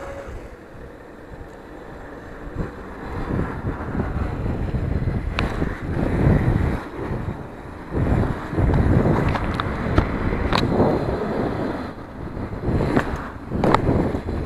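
Wind buffeting the bike-mounted camera's microphone while riding a BMX bike, with the tyres rumbling over asphalt and then paving tiles. A few sharp clicks and knocks from the bike over bumps.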